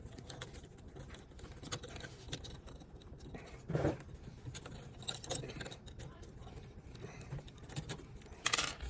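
Faint scattered clicks and scrapes of hand work undoing the fasteners that hold a built-in dishwasher in place, with a louder scrape near the end.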